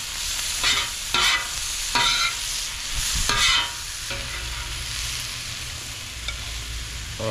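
Chicken strips, onions and bell peppers sizzling on a Blackstone flat-top steel griddle. A metal spatula scrapes and turns them several times in the first few seconds, then the sizzle carries on steadily.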